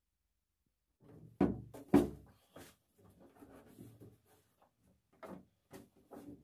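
Hands winding rope around a cat scratching post standing on a pine shelf: after a moment of silence, two loud wooden knocks about a second and a half in, then lighter taps and rustling handling sounds, with a few sharper knocks near the end.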